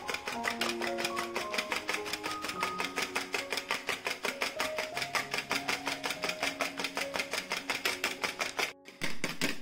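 Wire balloon whisk beating egg whites by hand in a plastic bowl: fast, even clicking and sloshing of the wires against the bowl, about seven strokes a second, with the whites turning to foam. Soft background music plays underneath. The whisking breaks off briefly about nine seconds in.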